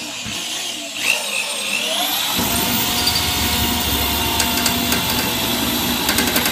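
Electric drill spinning up about a second in, its pitch rising, then running steadily at speed while pre-drilling a hole into the snowblower's bottom plate.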